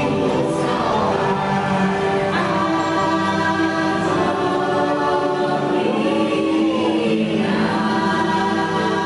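Choral music from the ride's soundtrack: voices holding sustained chords, with one voice sliding down in pitch about two-thirds of the way through.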